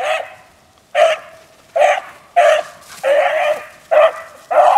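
Rabbit-hunting dogs barking: about seven short, loud barks spaced roughly half a second to a second apart, with one longer, drawn-out bark about three seconds in.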